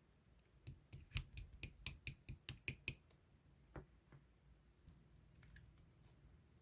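Slime being pressed and squeezed by hand, giving a quick run of sharp clicking pops for about two seconds, then one more click a second later.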